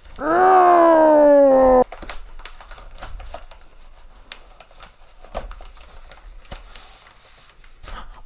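Faint crinkling, tearing and small clicks as hands pull apart a paper padded mailer and its plastic bubble lining. The loudest thing is at the very start: a long pitched tone, about a second and a half, sliding slightly down in pitch.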